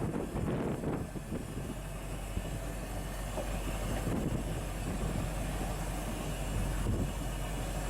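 Fishing boat's engine running steadily under way, a constant low hum under a rumbling wash of noise.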